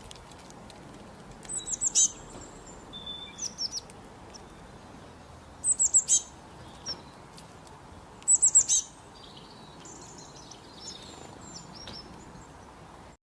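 A songbird singing a short phrase of four or five quick, high, down-slurred notes, repeated three times a few seconds apart, with softer chirps between, over a faint steady hiss. The sound cuts off near the end.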